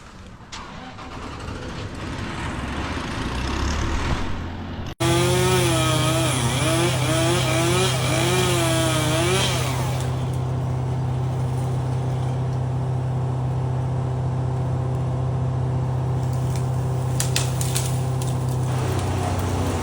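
Chainsaw cutting in tree branches. After an abrupt change about five seconds in it settles into a steady high-revving drone, its pitch wavering for a few seconds as it works through the wood.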